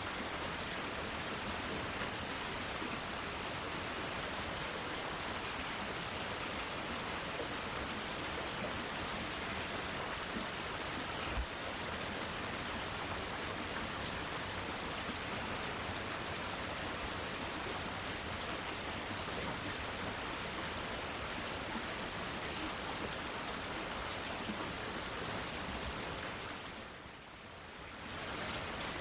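Steady rain falling, an even hiss of many drops, with one sharp drip-like tick about a third of the way in. The rain dips briefly in level near the end, then comes back up.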